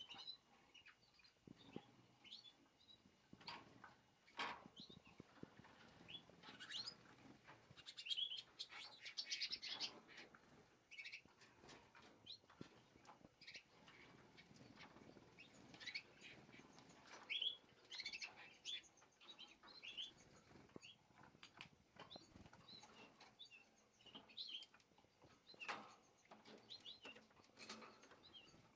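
Young canaries chirping faintly, short scattered calls from several birds, mixed with brief wing flutters as they move about the cage.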